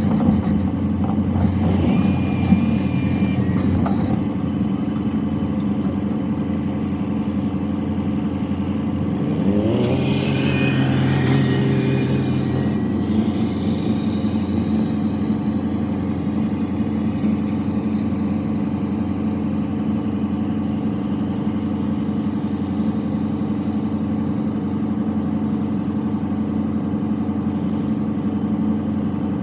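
Diesel engine running steadily, rising in pitch briefly about ten seconds in and then settling back.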